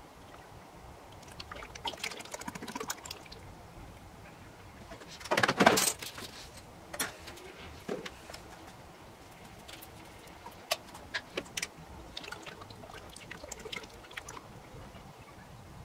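Transmission fluid poured from a plastic bottle into a funnel in the transmission fill tube, with scattered clicks and knocks from the bottle and tools being handled. A louder, noisy handling sound lasting under a second comes about five seconds in.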